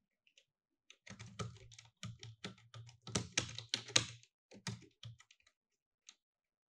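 Typing on a computer keyboard: after a short pause, a quick run of keystrokes for about three seconds, slowing to a few scattered key presses and a single one near the end.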